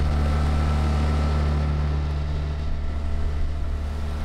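Inflatable dinghy's outboard motor running steadily with the boat under way, an even low hum.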